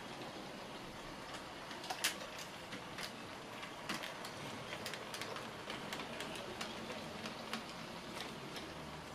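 HO scale model tram running on its track: irregular sharp clicks of the wheels over rail joints and points, the loudest about two seconds in, over a steady faint hiss.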